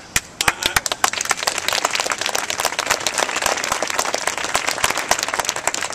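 Crowd applauding, many hands clapping at once; it starts a moment in and goes on steadily.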